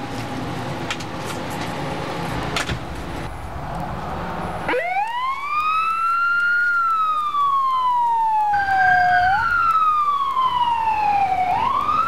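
For about the first five seconds, steady noise with a few sharp clicks. Then an emergency siren on fire apparatus starts wailing: each cycle rises quickly and then falls slowly over about four seconds.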